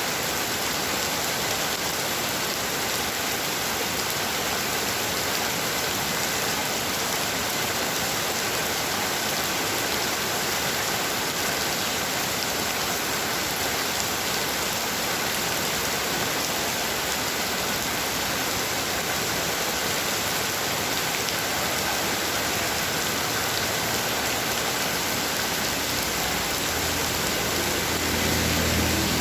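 Heavy rain falling and pattering on surfaces, a steady dense hiss. Near the end a low humming rumble comes in beneath it.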